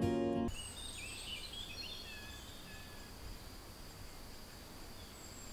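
Acoustic guitar background music cuts off about half a second in. Forest ambience follows: birds chirping in the first couple of seconds over a faint steady high insect drone.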